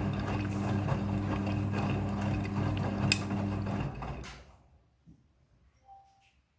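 Front-loading washing machine running in its rinse cycle: a steady motor hum with rattling clicks from the drum, winding down and stopping about four seconds in.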